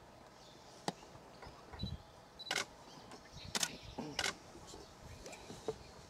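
Camera shutter clicks, about four sharp clicks spread over a few seconds, some in quick pairs, over a quiet outdoor background.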